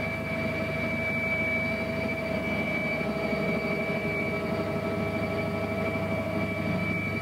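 Steady aircraft engine drone: a constant high whine over a low rumble.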